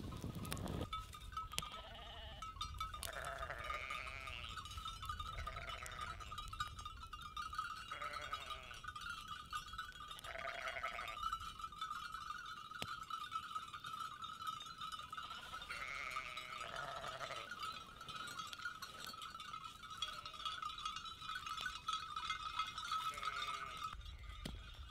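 Sheep bleating repeatedly, about nine short calls, over a steady high ringing of sheep bells.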